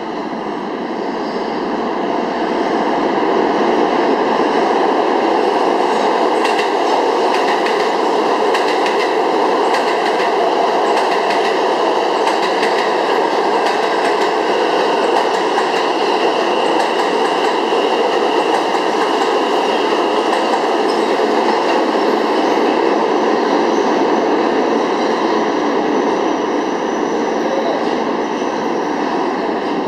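New York City subway express train of R160A and R160B cars running through a station at speed without stopping, its wheels on the rails making a steady, loud rumble. It builds over the first few seconds and holds, with clacking over rail joints, then eases slightly near the end.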